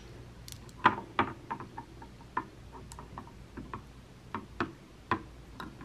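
Glass perfume bottles being shifted and set down on a marble vanity tray: scattered light clicks and taps of glass on stone, the sharpest about a second in and near the end.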